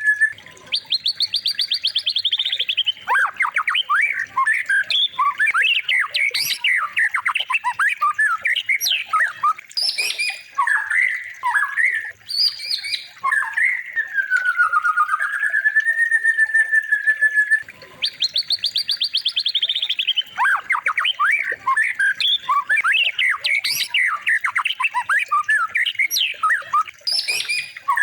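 Songbird song: a varied string of rapid trills, squawky notes and whistles, with one long wavering whistle in the middle. The phrases repeat as a loop of a masteran training recording for white-rumped shamas.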